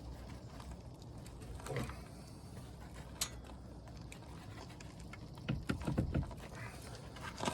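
Scattered light metal clicks and knocks from hand work on a brake caliper: a sharp click about three seconds in, then a short run of knocks a little later. A low, steady hum runs underneath.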